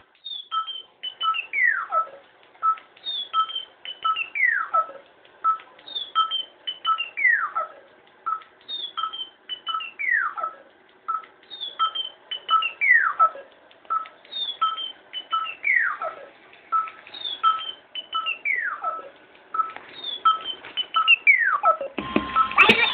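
Electronic looped sound from a sampler: a high chirp and short notes followed by a long falling whistle-like sweep, repeating eight times about every three seconds over evenly spaced short beeps. Near the end a louder, fuller sound cuts in as the unit's pads are played.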